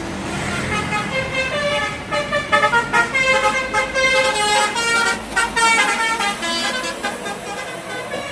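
Bus telolet horn of the Basuri multi-tone type playing a fast melody, note after note stepping up and down in pitch, loudest in the middle of the run.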